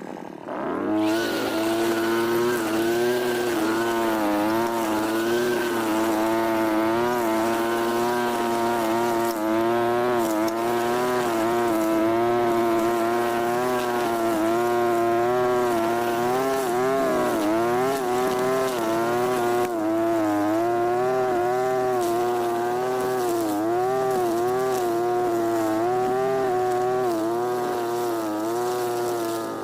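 Europa Hilt TB43 brush cutter's small two-stroke engine running at high revs while cutting grass. Its pitch keeps wavering up and down as the load on the line changes.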